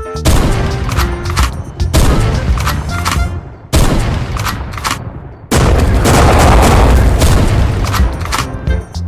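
A series of loud bangs and crashes, four big blasts each dying away over a second or two, the last one longest, with music under them.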